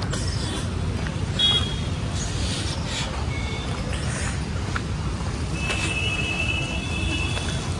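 Outdoor ambience of distant road traffic: a steady low rumble, with a few short high-pitched chirps and one held high tone lasting about two seconds near the end.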